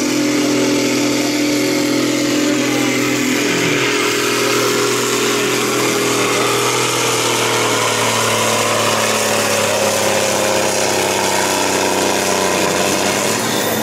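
Farm tractor's diesel engine running steadily under load, pulling a weight sled.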